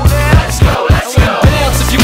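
Hip hop music with a steady beat; the bass cuts out briefly about a second in.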